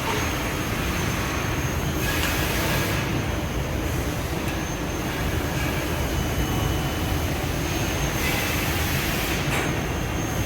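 CNC tube bender at work: a steady low machine hum, with two short hissing bursts, one about two seconds in and one about eight seconds in, over a faint high steady whine.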